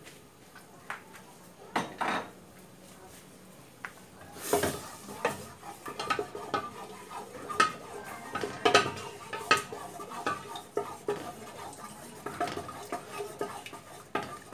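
Wooden spoon stirring margarine in an aluminium pressure cooker, clacking and scraping against the pot's metal sides and bottom. A few knocks early on, then a scrape about four seconds in, after which the stirring clatter comes thick and irregular.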